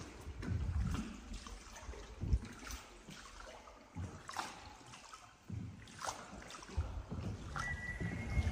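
Water sloshing and trickling around a small boat, with a few sharp knocks. A steady high tone comes in near the end.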